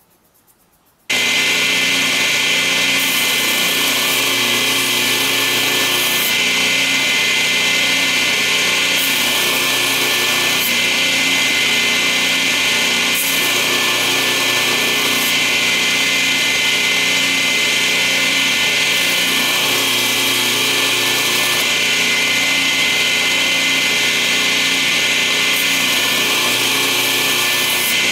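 A power tool's motor starts abruptly about a second in and then runs at a steady speed, a loud, unchanging whine with a strong high hiss.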